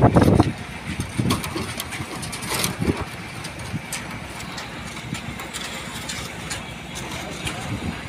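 A steady engine running, with a loud low thump in the first half second and scattered light clicks through the rest.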